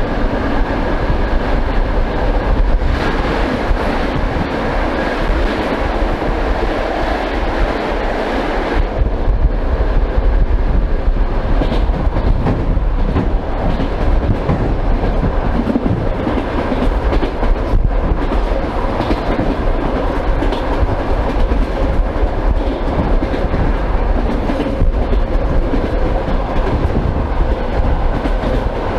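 Old suburban electric train running at speed, its wheels clacking over the rail joints under a steady rumble, heard through an open vestibule window with no glass. The rushing hiss drops a little about nine seconds in.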